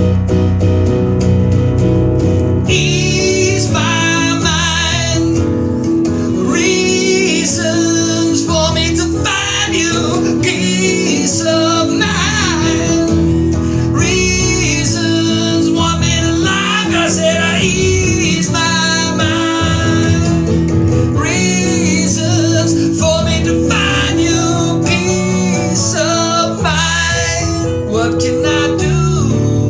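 Music: a strummed acoustic guitar and a bass line, with a wavering melody line over them from about three seconds in.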